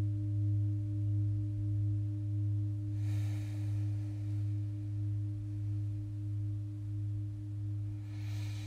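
Large singing bowl ringing on after a mallet strike: a deep, steady hum with a few higher overtones, its loudness wavering in a slow pulse as it sustains.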